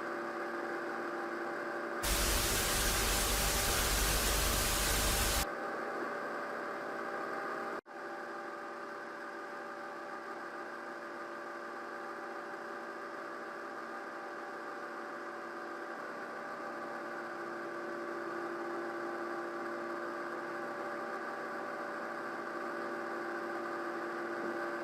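Steady electrical hum made of several held tones, like a dead broadcast signal. About two seconds in a burst of white-noise static comes in over it for about three and a half seconds, and near eight seconds the sound cuts out for an instant before the hum carries on.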